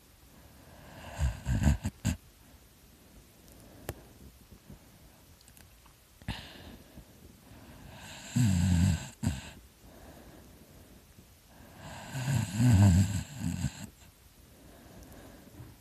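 A person snoring heavily in deep sleep: three loud snores a few seconds apart, with quiet breathing between.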